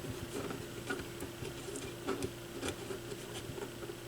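Light scattered clicks and taps of a replacement turntable tonearm and its small parts being handled and seated on the plinth, over a faint steady hum.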